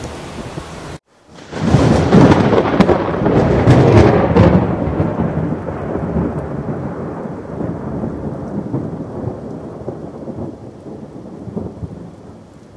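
A thunderclap with sharp crackles, then a long rolling rumble that slowly fades over steady rain. It starts just after a brief cut about a second in. Before the cut there is steady wind and rain noise.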